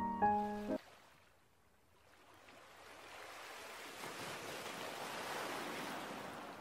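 The last sustained piano notes of background music stop about a second in. Then surf washes onto a beach: a wave swells up, breaks and fades away.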